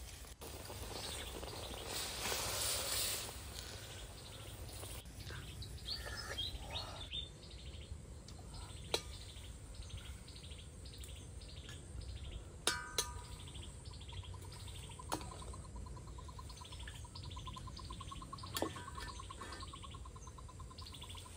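Outdoor ambience of birds giving short, high chirps over and over, about two a second. A few sharp knocks stand out, and a fast pulsing trill comes in near the end.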